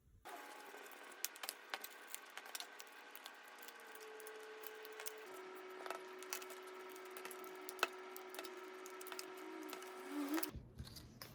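Scattered light clicks and taps of small objects being handled, over a faint steady hum. The hum's tone drops a step about halfway through, and everything cuts off abruptly near the end.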